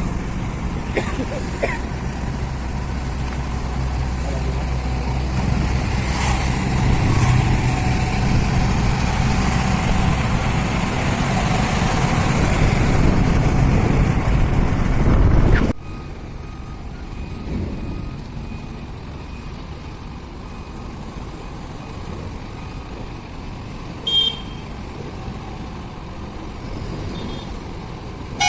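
Tipper truck's diesel engine running with a steady low note that grows gradually louder, then cuts off abruptly about halfway through, leaving quieter road and vehicle noise with a brief high-pitched tone near the end.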